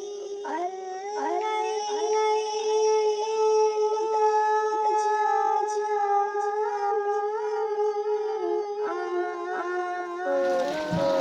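A sung melody of long held notes, the voice sounding processed by an effect. About ten seconds in, the hiss and splash of liquid pouring joins it.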